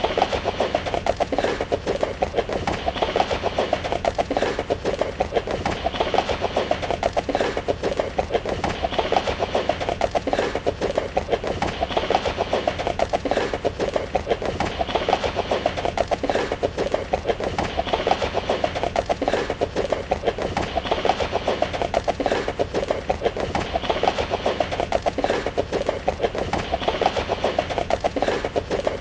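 Horse hooves running in a fast, steady stream of hoofbeats, with a pattern that repeats about every three seconds.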